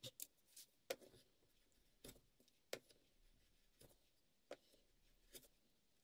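Faint, irregular taps and short scrapes, about nine in all, as a small wooden piece is handled and set down against the fence of a wooden jig board.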